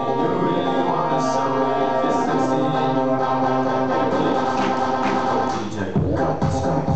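Dance-fitness music: held chords with choir-like singing and no beat, then a heavy bass beat drops in about six seconds in.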